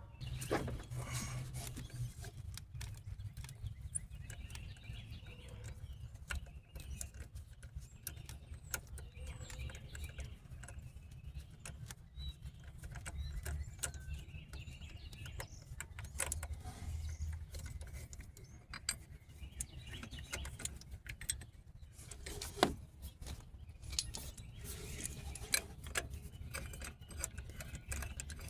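A hand ratchet and metal tools working 12 mm bolts loose on a car: irregular clicks and metallic clinks over a steady low rumble.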